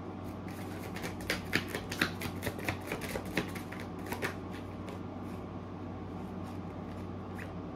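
A tarot deck is shuffled by hand: a quick run of card clicks and flicks for about four seconds, then a few stray flicks as cards jump out of the deck. A steady low hum runs underneath.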